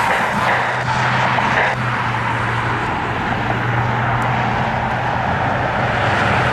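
Jet airliner engine noise, steady and loud, over a constant low hum.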